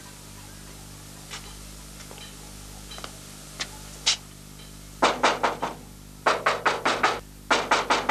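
Knuckles knocking on a door: three quick bursts of several raps each in the second half, after a few faint footsteps.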